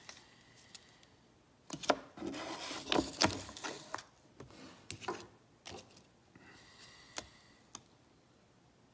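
Plastic handling noise on a Sigma Metalytics precious metal verifier: scattered clicks and knocks with some rubbing as a capsuled silver coin and a clear plastic sheet are moved about on its sensor plate. A faint steady high tone sounds twice.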